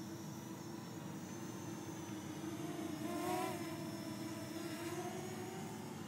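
Parrot Anafi quadcopter's propellers humming in flight, the pitch wavering slightly as it manoeuvres, with a brief louder swell about three seconds in.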